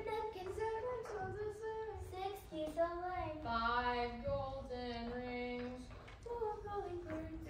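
Children singing a song, their voices holding longer notes around the middle.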